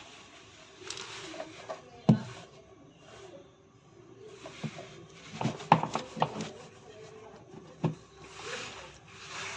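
Hands at work on washing-machine parts: a few sharp knocks and a quick clatter of several knocks in the middle, with rustling and scraping in between.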